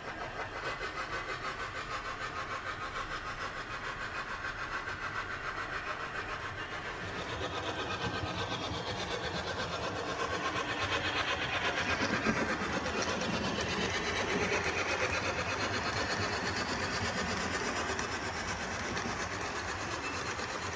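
Sound decoder of a Bachmann A1 model steam locomotive playing rapid, regular exhaust chuffs through its onboard speaker as the locomotive runs, louder as it passes by in the middle.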